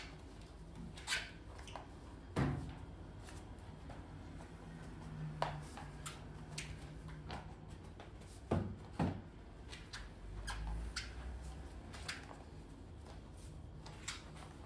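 Flat microfibre mop worked over a glossy tiled floor: quiet sliding with scattered sharp knocks and clicks from the mop frame, two of them close together about eight and a half seconds in.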